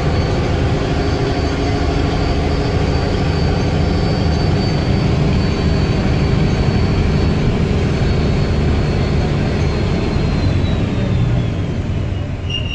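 Guy Arab III bus engine running steadily with a high, thin whistle held over it, the bus's 'turbo whistle'; the whistle slides lower near the end.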